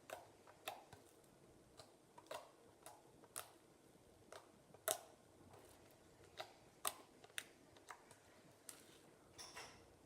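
White-glue slime being poked and squeezed by hand, giving irregular small clicks and pops, about two a second, some sharper than others.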